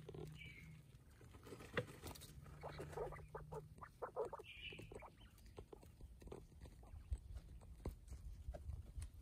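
Japanese quails scratching and shuffling in dry soil and bark mulch, a run of quick, faint rustling and pattering strokes, busiest around the middle. Two short, soft high calls come near the start and again about halfway.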